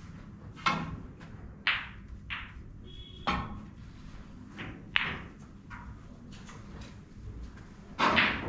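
Snooker balls and cues clicking: about seven sharp knocks spread out at uneven gaps, the loudest and longest near the end.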